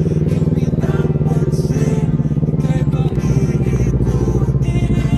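Motorcycle engine running steadily while riding, with music playing over it.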